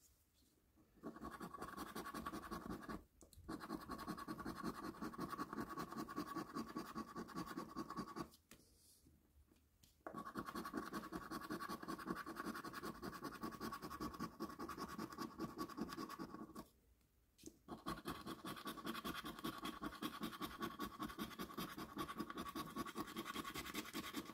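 A coin scratching the latex coating off a paper scratchcard in fast back-and-forth strokes. It comes in four stretches of scratching with short pauses between.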